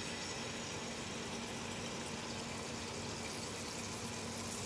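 Spoonfuls of sweet semolina batter deep-frying in hot oil: a steady, even sizzle, with a low steady hum underneath.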